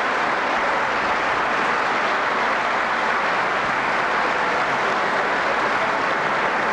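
Theatre audience applauding: steady, dense clapping with no music or speech over it.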